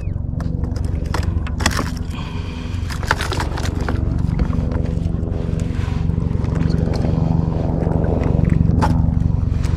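A steady low hum runs throughout, with sharp clicks and rattles of fishing gear being handled on the kayak, clustered in the first few seconds and again near the end.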